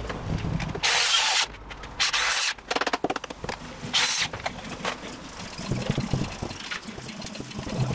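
Three short loud bursts of hissing noise from a handheld power tool worked on a timber beam, about a second in, two seconds in and four seconds in. A low steady engine-like rumble runs underneath.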